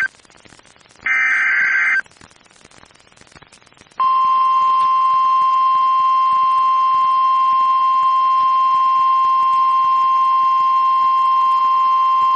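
NOAA Weather Radio EAS alert: about a second in comes the last one-second warbling burst of the digital SAME header that carries the tornado warning code. After a two-second gap, the 1050 Hz warning alarm tone sounds, one steady high tone held for about nine seconds.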